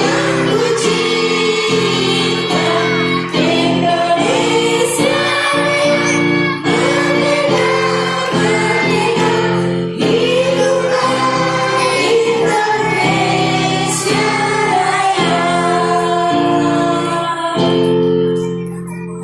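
Kindergarten children's choir singing a song over sustained instrumental chords. The song ends on a long held chord near the end.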